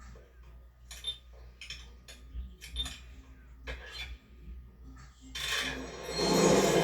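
Animated-film sound effects: a run of light clinks and clicks, like small metal or ceramic objects being handled. About five seconds in, a loud dense rush of noise swells up and holds.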